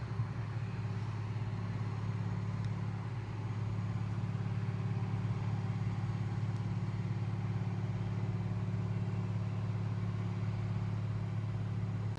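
A sleeping cat snoring: a steady low rumble that runs on without pauses.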